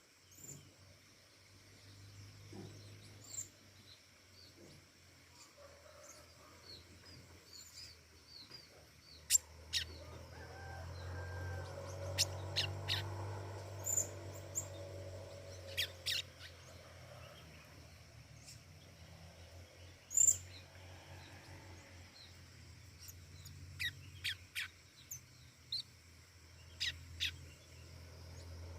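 A pentis raja, a small songbird, giving short, sharp high chirps in scattered clusters over a low steady hum.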